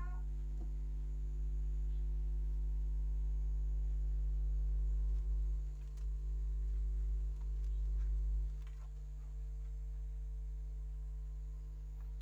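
Subwoofer driven by an amplifier giving off a steady low mains hum, a deep tone with fainter higher overtones, which drops a little in level about eight and a half seconds in.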